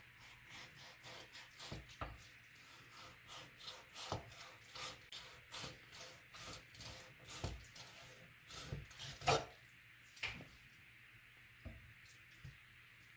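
Kitchen knife scraping along a wooden cutting board as it slides between skin and flesh, skinning a raw largescale blackfish fillet: a quick run of faint, short scrapes, several a second, with a couple of louder strokes about two-thirds of the way in and only a few left near the end.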